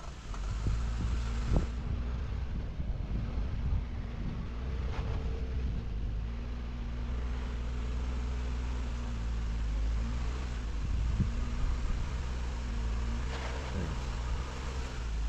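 Jeep engine running steadily at low revs, as when crawling a rocky trail, with a few short knocks about one and a half seconds in and again near the end.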